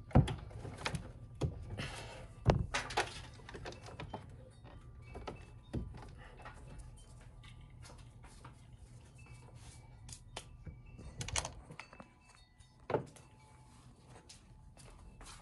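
Scattered plastic clicks and knocks from the air filter housing of a 2009 Honda Accord being handled as the engine air filter is changed, clips and lid clattering; the knocks come thickest in the first few seconds, with a couple more late on.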